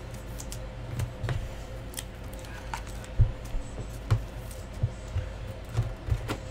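Trading cards being handled and slid into clear plastic sleeves: light plastic crinkles, clicks and soft taps at irregular moments, over a faint steady hum.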